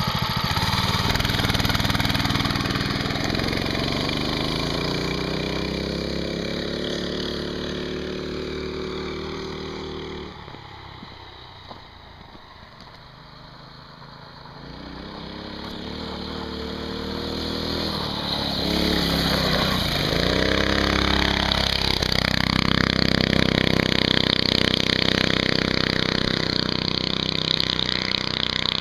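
Small single-cylinder four-stroke minibike engines, a 6.5 hp Greyhound and a 6 hp Tecumseh, running hard at high speed. First an engine revs up and fades away over about ten seconds. After a quiet spell a bike grows louder again, its engine pitch swinging up and down, then runs loud and steady near the end.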